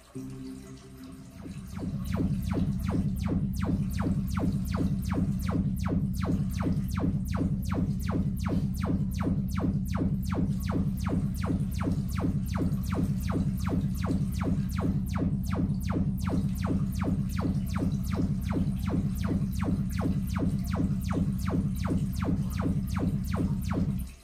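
Sonos Play:5 speaker playing its Trueplay room-tuning test signal. A few stepped tones start it off; then, about two seconds in, it settles into a steady low hum with a fast, even ticking, and cuts off suddenly near the end.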